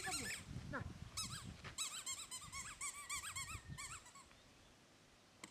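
Rubber squeaky toy ball squeezed over and over, a quick run of short high squeaks lasting about three seconds, starting about a second in.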